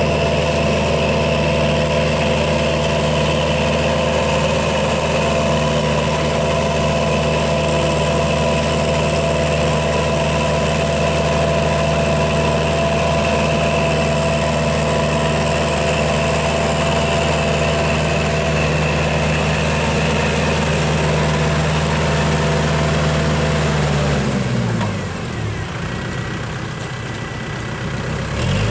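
Tractor diesel engine running at a steady speed. Near the end its pitch falls and it gets quieter as it slows down.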